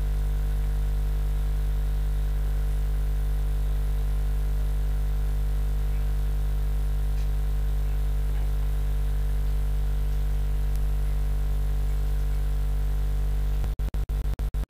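Steady electrical mains hum with a stack of overtones, broken by several brief gaps of silence near the end.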